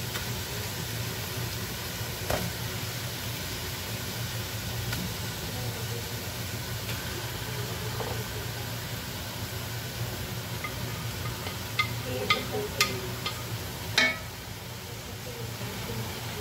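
Chopped chicken frying in hot oil with onions and garlic in a pot: a steady sizzling hiss over a low hum. Near the end come a few sharp knocks of a wooden spatula against the pot as the chicken is stirred.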